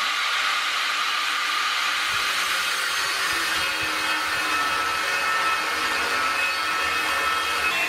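Corded angle grinder with a thin cut-off wheel running, then cutting into the steel cutting edge of a snow plow from about three seconds in, adding a steady high whine to the motor's noise.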